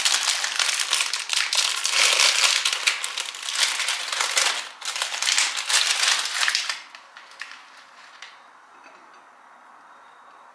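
Plastic snack-cake wrappers crinkling and crackling as packaged cakes are opened and handled. The crinkling is dense for about seven seconds, then a few lighter crinkles follow.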